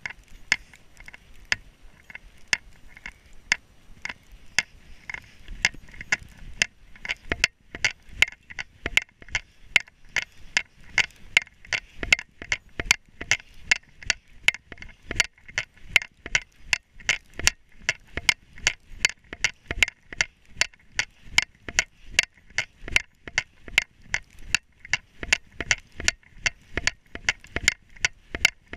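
Footsteps crunching in snow at a steady walking pace, about two steps a second, fainter at first and louder from about seven seconds in.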